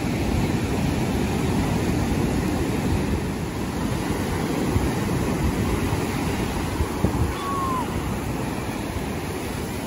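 Ocean surf breaking near the shore and washing up the sand: a steady rushing wash, with wind buffeting the microphone underneath.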